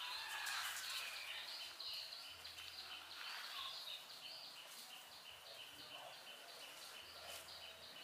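Faint outdoor ambience with a steady, rhythmic high-pitched chirping, about four chirps a second.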